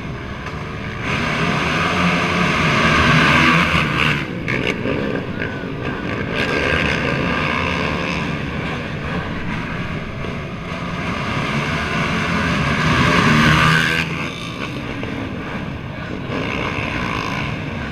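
Pack of race ATV engines revving on the start line, the sound swelling in two long surges about a second in and again from about six seconds, then dropping back to a lower level near the end.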